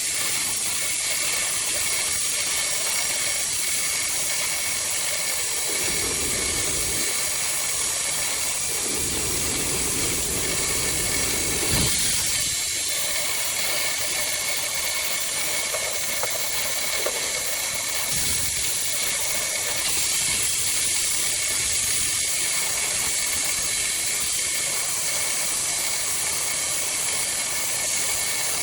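Wood-Mizer portable band sawmill running, its blade cutting through a large poplar log with a steady hiss and whine. Brief lower-pitched swells come about six, nine and eighteen seconds in.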